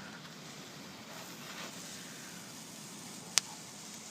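Consumer firework fountain, tipped over, spraying sparks with a steady hiss, and one sharp crack about three and a half seconds in.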